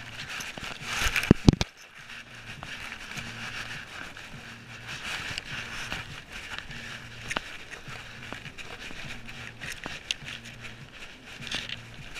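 Grass blades brushing and ticking against a dog-mounted camera housing as the dog noses through the grass, with a few heavy knocks on the camera about a second and a half in.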